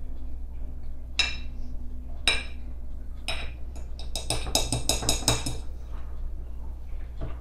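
Metal cutlery clinking and scraping against a ceramic dinner plate while chicken is cut: three separate clinks about a second apart, then a quick run of clinks lasting over a second.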